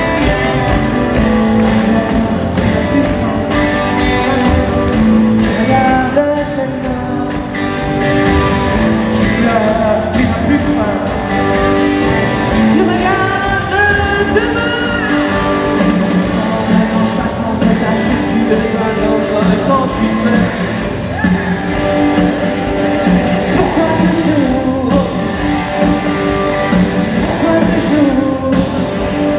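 Live rock band playing at full volume: drum kit, electric guitars and bass guitar, with singing over it.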